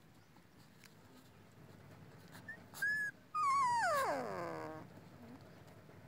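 A young puppy whimpering. It gives a short high whine, then a longer cry that wavers and then falls steeply in pitch.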